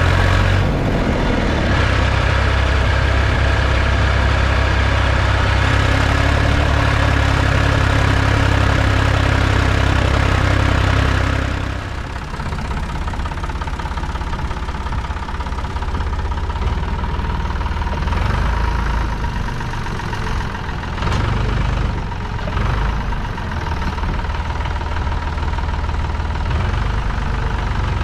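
Ford 4610 tractor's three-cylinder diesel engine running steadily under way, heard close from the seat. About twelve seconds in it changes abruptly to a quieter, even idle.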